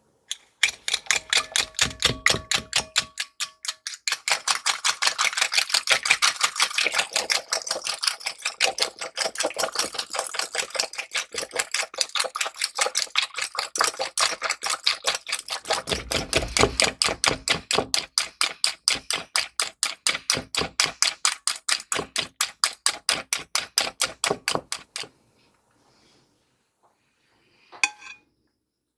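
Metal spring whisk beating eggs and sugar in a ceramic bowl: rapid, even clicking of the wire against the bowl, about five strokes a second, which stops a few seconds before the end. A couple of short clinks follow near the end.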